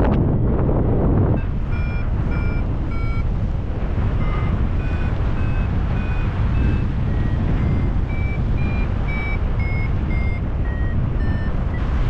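Paragliding variometer beeping about twice a second, its pitch wandering up and down, the sign that the glider is climbing in lift. Wind noise on the microphone, heaviest in the first second and a half before the beeps begin.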